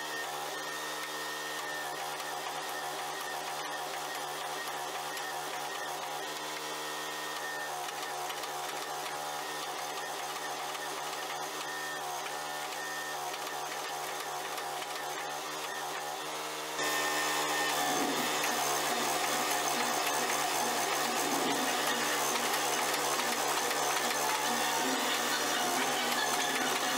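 Hydraulic forging press running with a steady motor and pump hum. It gets louder and busier about 17 seconds in, while its flat dies squeeze a glowing steel bar.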